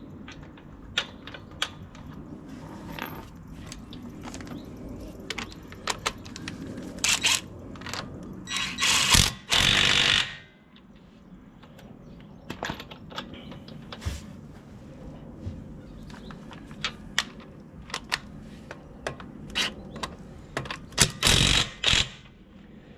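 Metal clinks and knocks of wheel nuts and tools being handled while a car wheel is fitted and its nuts run on. Several louder noisy bursts stand out, the longest lasting over a second about nine seconds in.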